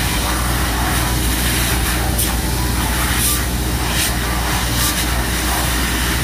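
Loud, steady construction-site machinery noise: an engine runs with a constant low drone under a broad hiss. A couple of short, sharper bursts come about two and three seconds in.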